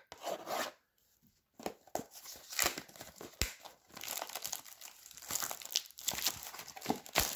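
Packaging of a trading-card hobby box being handled and torn open: irregular crinkling and tearing of the plastic wrap, with sharp clicks and crackles. It pauses briefly about a second in.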